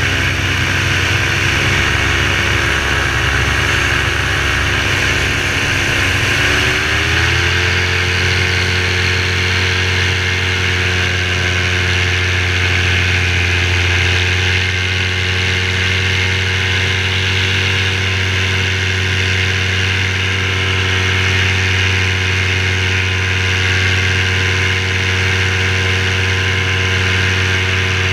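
Parajet V3 paramotor's two-stroke engine running steadily in flight. About seven seconds in, the throttle opens and the pitch rises, then holds at the higher speed. The engine is freshly rebuilt and tuned, and the owner calls it running beautifully.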